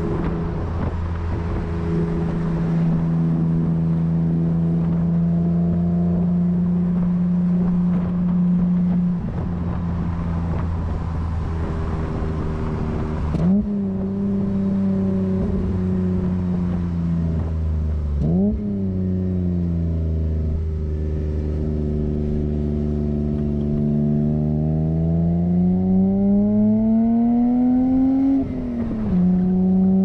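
BMW E30 320i's M20 2.0-litre straight-six engine and Scorpion exhaust on the move, heard from a microphone at the rear bumper. The engine note holds steady for a while, jumps up briefly twice around the middle, then climbs steadily as the car accelerates and drops sharply near the end.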